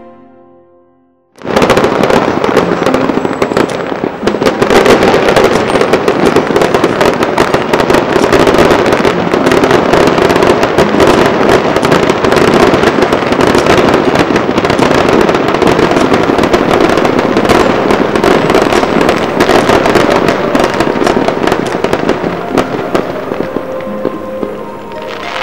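Fireworks crackling and popping in a dense, continuous barrage, many small reports a second. It starts abruptly about a second and a half in and eases off near the end.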